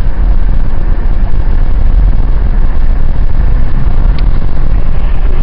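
A 1970s car driving, heard from inside the cabin: a loud, steady low rumble of road and engine noise.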